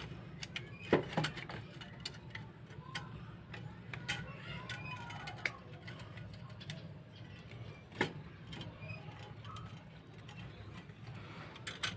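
Scattered light clicks and knocks of hand tools and metal engine parts being handled during motorcycle engine reassembly, over a steady low hum. The sharpest knocks come about a second in and again at about eight seconds.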